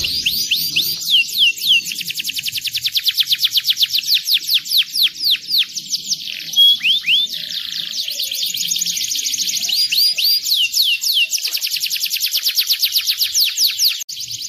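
Domestic canary singing long, fast rolls of high down-slurred notes, switching from one trill to the next every second or two. A short run of slower, separate notes comes about halfway through.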